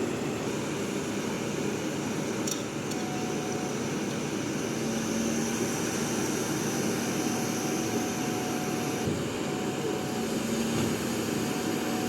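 Mobile crane's engine running steadily, with a faint whine that comes and goes over the engine noise.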